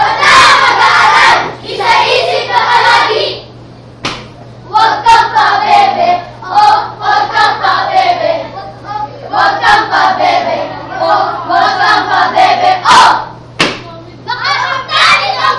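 A chorus of children's voices in unison, delivering phrases with short pauses between them, with a few sharp claps.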